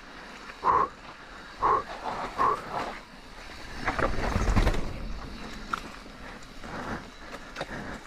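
Mountain bike descending a rocky dirt trail, heard from a GoPro mounted on the rider: tyres rolling over dirt and rock and the bike rattling, with three short, bright bursts about a second apart in the first three seconds and a louder low rumble of jolting and wind on the microphone around four to five seconds in.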